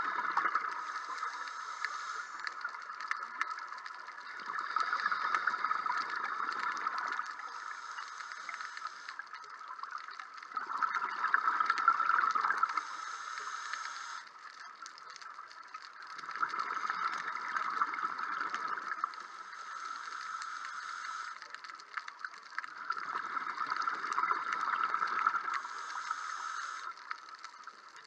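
Scuba diver breathing through a regulator underwater: four rushes of exhaled bubbles, each two to three seconds long and about six seconds apart, with a quieter steady hiss between them.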